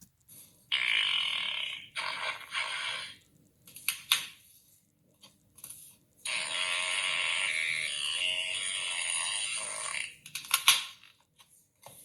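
Cartoon fart sound effects: several short farts in the first few seconds, then one long fart of about four seconds, ending in a quick run of short ones.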